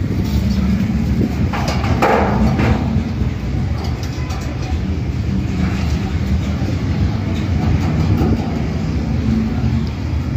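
A steady low mechanical rumble, with a few short metallic clanks about two seconds in as the steel dish stand is handled.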